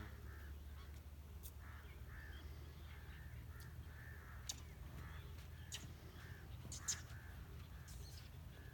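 Birds calling over and over with short crow-like calls, about two a second, over a steady low rumble. A few sharp clicks come in the second half, the loudest about two-thirds of the way through.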